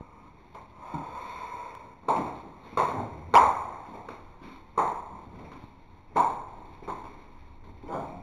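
About six sharp knocks or impacts, irregularly spaced and each ringing briefly, the loudest about three and a half seconds in.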